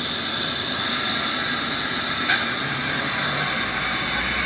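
Large band saw running with a steady high hiss as a log is fed through its blade. A single sharp click about two seconds in.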